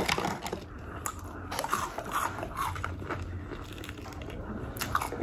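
Close-up chewing of crispy fried onion rings: a string of irregular crunches and small clicks.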